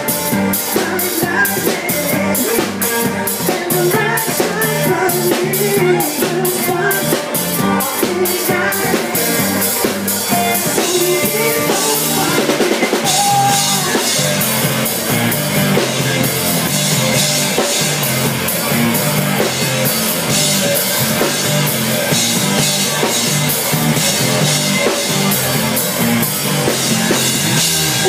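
Live rock band playing: drum kit, electric guitar, bass guitar and keyboard, with a steady beat of drum hits that gives way to a fuller, denser section about nine seconds in.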